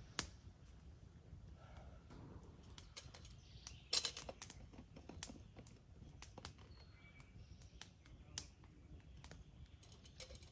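Wood campfire crackling quietly: scattered sharp pops and clicks at irregular intervals, the loudest about four seconds in and again near the end. A few faint bird chirps in the background.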